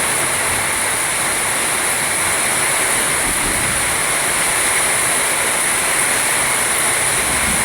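Heavy rain pouring down in a strong windstorm, a loud steady hiss with no letup.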